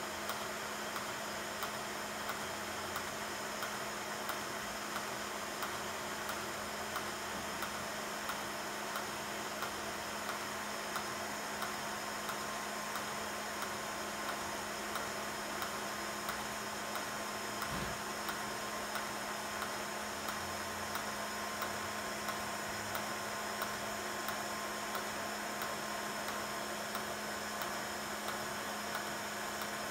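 Steady hiss and hum of a Miller Dynasty inverter TIG welder's arc on a titanium seat-tube joint turning in a small motor-driven rotary fixture, with faint regular ticking throughout. A single brief low thump a little past halfway.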